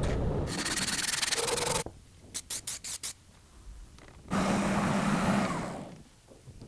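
Abrasive rubbing on rusty metal pliers during rust removal, in several short edited bits: a fast brushing scrub, four short strokes, then a longer scrub with a low hum under it that fades out.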